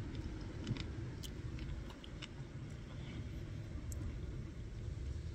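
A person chewing a bite of pastry, faint wet mouth clicks scattered through, over a steady low rumble.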